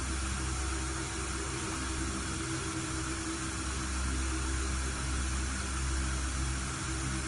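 Synthesized sound-therapy drone: a steady hiss of noise layered over steady low humming tones and a fainter mid tone, unchanging throughout.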